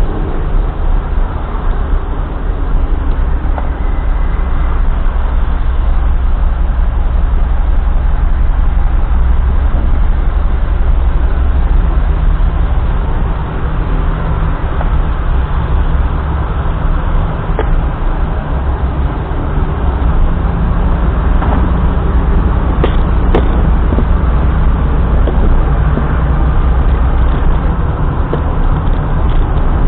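Car driving along a road: a steady low engine and tyre rumble, its pitch shifting slightly a couple of times, with a few faint clicks.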